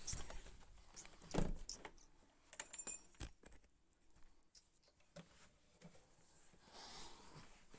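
Handling noise of a camera being carried and moved around: scattered knocks and cloth rustles, with a cluster of sharp clicks and a brief high metallic jingle about three seconds in.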